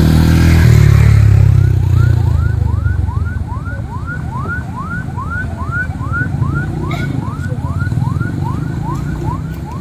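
Vehicle engine running, loudest in the first two seconds, with a repeated rising electronic siren chirp about three times a second that starts about a second and a half in.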